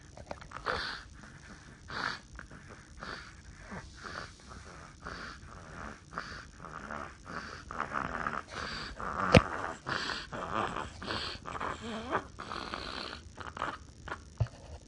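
Snoring: a run of short, noisy breaths coming irregularly, about one or two a second, growing louder in the second half, with one sharp click about nine seconds in.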